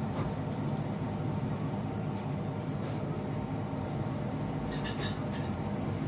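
Steady low mechanical rumble, with a few faint crinkling clicks from handling the gauze dressing about two seconds in and again near the end.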